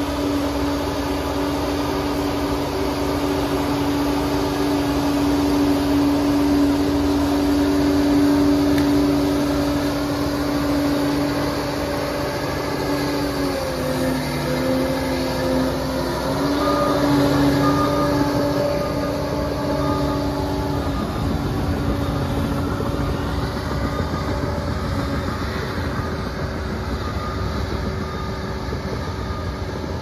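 Liebherr PR 746 crawler dozer running under load as it pushes earth, a steady engine-and-drive whine with track noise; the pitch dips briefly about halfway through, and the whine fades over the last third as the machine moves away.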